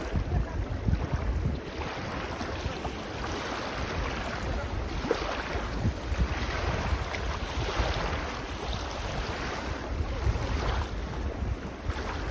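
Small sea waves washing in and out on a beach, swelling every couple of seconds, with wind buffeting the microphone in low gusts.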